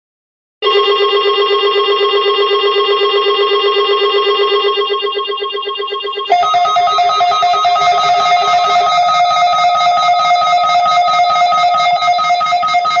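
Weather alert radio receivers sounding their alarms: a loud, rapidly pulsing buzzy electronic tone starts suddenly, then about six seconds later changes to a higher, steady alarm tone with a rough, raspy undertone.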